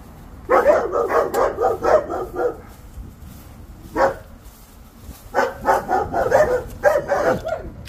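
A dog barking in quick runs of barks: one run starting about half a second in, a single bark around the middle, and another run near the end.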